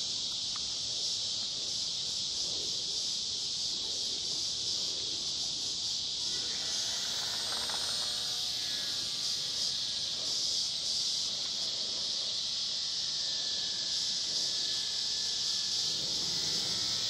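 Steady high-pitched insect chorus buzzing without a break. A fainter whine with several tones comes and goes about halfway through.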